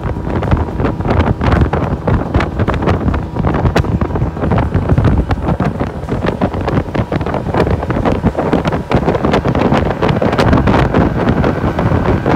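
Loud wind buffeting the microphone on a fishing boat running at speed, with the boat's engine and water rushing past the hull underneath.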